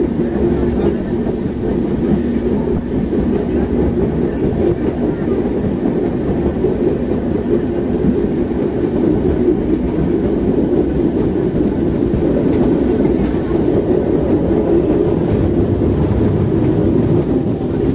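Vintage tram running on its rails: a steady, continuous rumble with faint scattered clicks.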